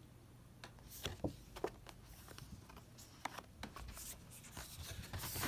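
Collector cards and the camera being handled: faint scattered clicks and scrapes, with a louder rubbing noise near the end.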